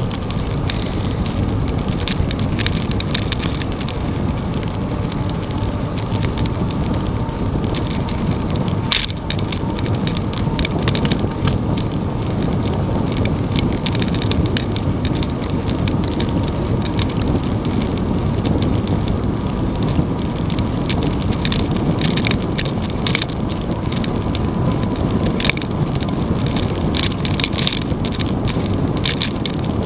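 Bicycle riding on a paved path: steady wind rush on the microphone and tyre noise, with irregular clicks and rattles from the bike going over bumps, a sharp one about nine seconds in.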